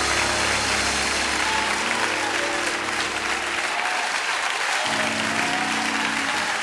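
Audience applause on a live gospel mass choir recording, with sustained instrumental chords underneath that fade out about halfway through and a new chord coming in about a second later.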